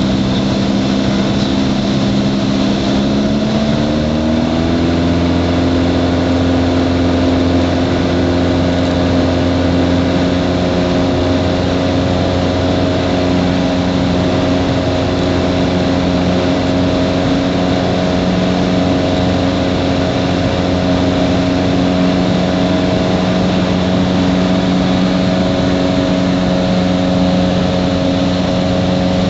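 Cessna 177 Cardinal's piston engine and propeller heard from inside the cabin, running steadily. About four seconds in the engine note rises as power is added, then holds steady while the plane flies a low pass along the runway.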